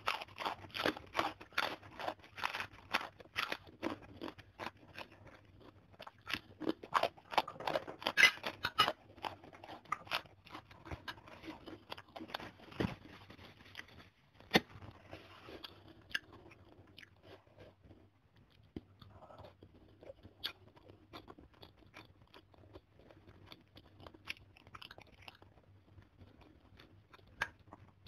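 Close-miked crunching and chewing of a crisp Indonesian cracker (kerupuk). The crackling is dense and loud for roughly the first nine seconds, then thins to softer, scattered chewing and mouth sounds.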